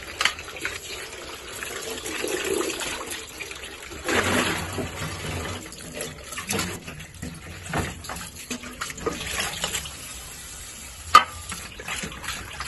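Tap water running into a stainless-steel sink and splashing as small sardines are rinsed by hand in a plastic bowl, with a louder gush of water about four seconds in. A single sharp knock sounds near the end.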